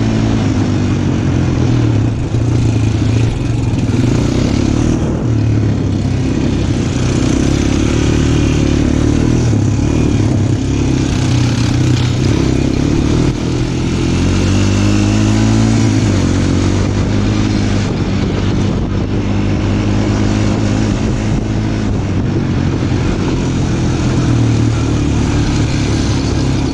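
Engine of a small off-road vehicle running while riding, its pitch rising and falling with the throttle.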